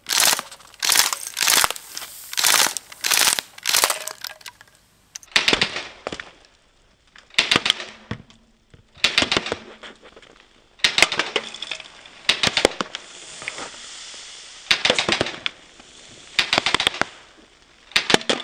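Crosman A4P CO2-powered BB pistol firing short full-auto bursts, one about every 0.7 s for the first four seconds, then longer, irregularly spaced bursts with pauses between them.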